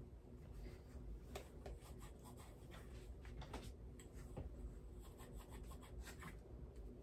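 Faint rustling and light clicks of clothes and small things being handled and moved about, over a low room hum.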